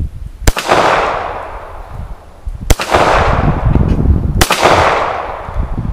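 Three shots from a Stallard Arms JS9 9mm pistol firing lacquered steel-cased ammunition, about two seconds apart. Each shot is followed by a long fading echo.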